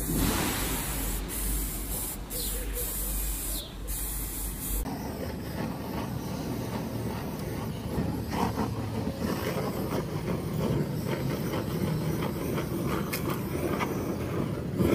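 Aerosol spray paint can hissing in several sprays with short breaks. About five seconds in, it gives way to a steady low noise.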